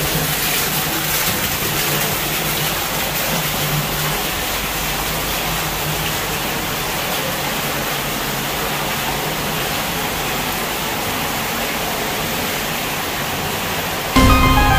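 Hot spring water pouring and splashing in a rock cave pool: a steady rush that echoes in the cave. Background music comes back in near the end.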